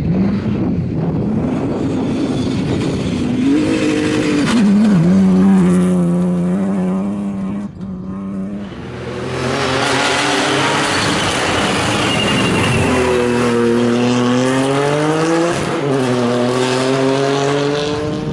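Rally car engines at full throttle on a special stage, revving up and dropping with gear changes, pitch climbing and falling again and again. There is a brief break about eight seconds in, then another car climbs through the revs with a quick shift near the end.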